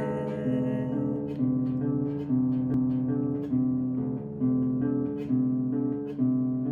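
Instrumental music: a guitar playing plucked chords about once a second, each one left ringing.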